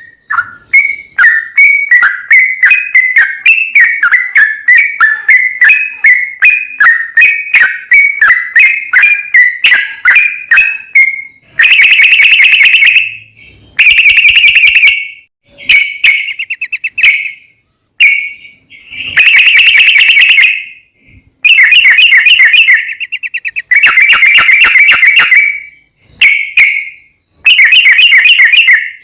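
Loud yellow-vented bulbul (trucukan) song from a lure recording. It opens with about ten seconds of quick chirping notes, roughly four a second. Then come long, rapid rolling trills in bursts of a second or two with short gaps between them.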